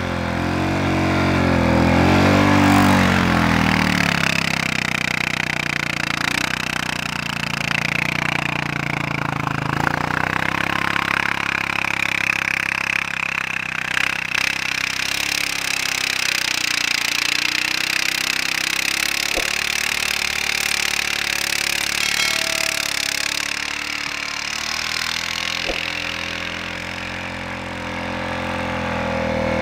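Honda Rubicon 520 ATV's single-cylinder engine running under load as it churns through deep snow on Camso X4S rubber tracks, its pitch rising and falling with the throttle. Over a steady hiss, it is loudest a couple of seconds in and grows louder again near the end as the machine comes closer.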